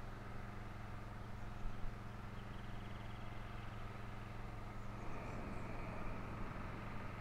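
Outdoor ambience: a steady low hum with faint, high bird chirps and a short rapid bird trill about two and a half seconds in.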